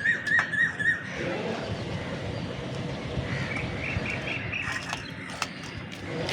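A bird calling: a quick series of short whistled notes, about four a second, stopping about a second in, then another short run of higher notes a little after the middle, over steady background noise.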